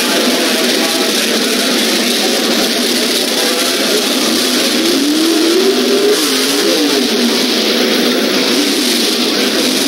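Drag-racing car engines running loud, including a Motorcraft Ford drag car's V8, with the engine pitch climbing and falling about halfway through as the throttle is blipped.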